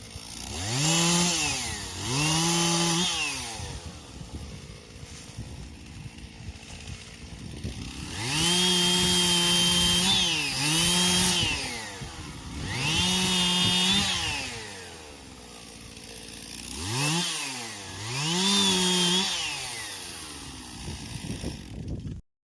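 Two-stroke chainsaw revved up to full throttle in about seven bursts, some brief and one held for about two seconds, dropping back to a lower idle between them. The sound cuts off suddenly near the end.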